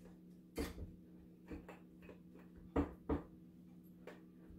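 Hands working soft dough into a metal bagel pan on a countertop: a few soft knocks and taps, the clearest near the start and twice in quick succession about three seconds in, over a faint steady hum.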